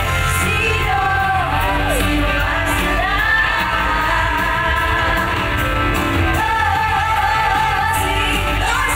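A woman singing a pop song into a microphone, amplified over loud band music with drums and bass. She slides between notes early on and holds one long note for the last few seconds.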